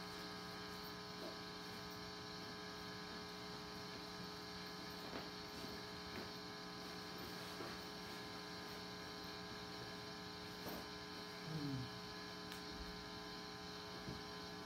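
Steady electrical mains hum with a buzzy stack of overtones, with a few faint ticks and a short falling sound about eleven and a half seconds in.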